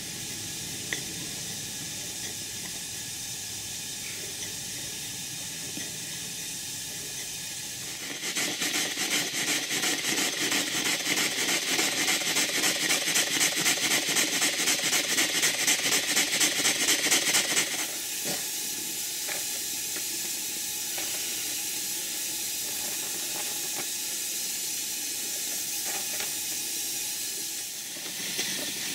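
Large cast-iron horizontal model steam engine running on live steam: a steady hiss of steam, with a louder, fast, even exhaust beat of several strokes a second for about ten seconds in the middle.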